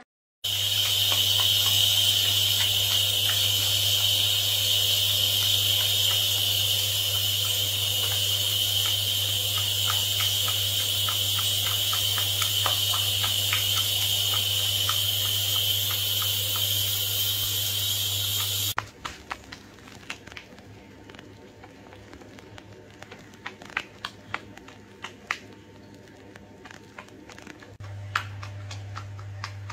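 Water-filled bubble bath with a hairless sphynx kitten in it. A loud steady rushing noise with a low hum, like a tap or bath jets running, goes on until it cuts off suddenly about two-thirds of the way in. After that comes a quieter stretch of fine crackling and small splashes as the kitten paws at the foam, with the low hum returning near the end.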